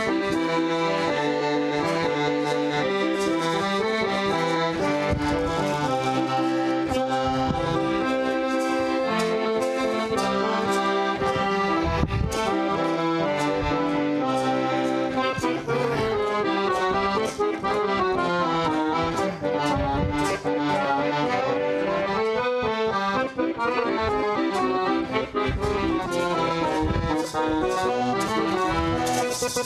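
Accordion music in a traditional style: full chords at first, then a quicker moving melody from about halfway through.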